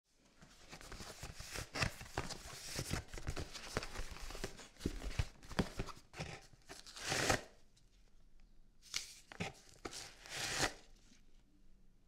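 Cardboard box of disposable latex gloves being handled and torn open: dense crackling, tearing and clicking of the cardboard, then a few separate rustling pulls near the end as gloves are drawn out of the box.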